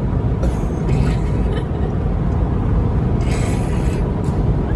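Road and engine noise inside a moving car's cabin: a steady low rumble, with two brief hissing rushes, about half a second in and around three seconds in.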